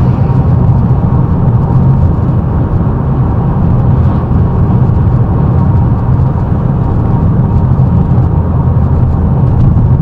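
Steady in-cabin drone of a 2011 MG6 1.8 turbo petrol car cruising, with a straight-through exhaust: low engine, exhaust and tyre rumble at an even pace.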